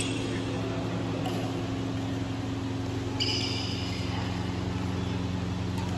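Badminton rally: sharp hits of racket strings on the shuttlecock, spaced a second or two apart. The hit about three seconds in is followed by a brief high ringing ping. A steady low machine hum runs underneath.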